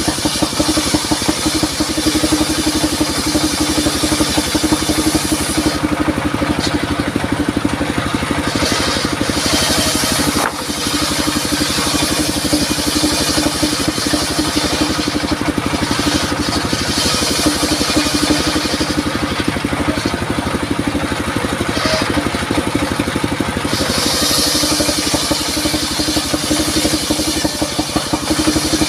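Engine-driven circular saw running steadily, with the hiss of the blade cutting durian wood coming and going: it eases off for a few seconds about six seconds in and again around twenty seconds in.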